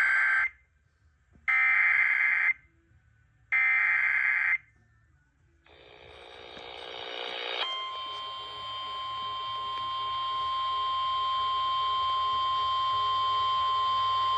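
Emergency Alert System header: three short bursts of warbling SAME data tones, each about a second long and a second apart. A short rising hiss follows, and from about seven and a half seconds in, the steady single-pitch weather radio warning alarm tone sounds and holds.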